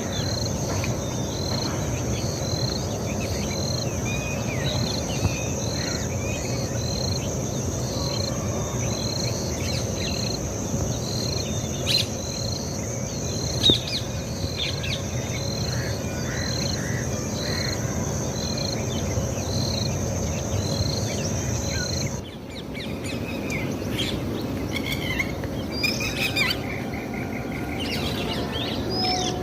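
Birds calling over a steady, high-pitched insect drone, with a short chirp repeating a little under once a second. About 22 seconds in, the drone and the repeating chirp stop suddenly, and other bird calls carry on.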